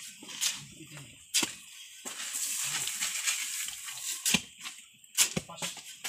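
A hoe scraping and chopping through a dry sand-and-cement mix on the ground, mixing it by hand, with a few sharp knocks of the blade.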